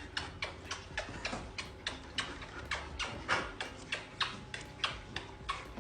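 Regular clicking, about three clicks a second, over a faint low hum.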